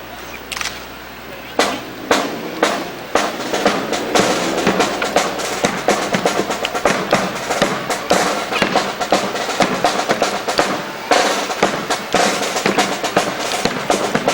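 Drum-led band music with snare and bass drum, beating densely from about a second and a half in after a quieter start.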